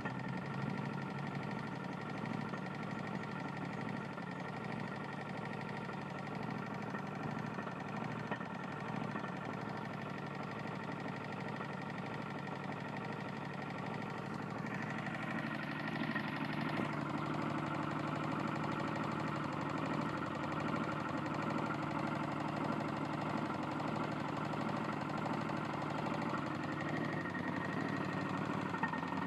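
Tecumseh lawn mower engine running with a knock from its damaged connecting rod. The running note changes and gets slightly louder about halfway through.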